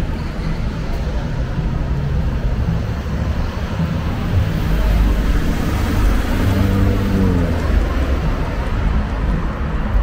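City road traffic: cars driving past on the street, with one vehicle passing louder about halfway through, its engine note falling as it goes by.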